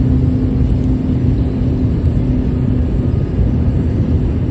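Low steady rumble of distant engine noise, with a droning tone that fades out about three seconds in.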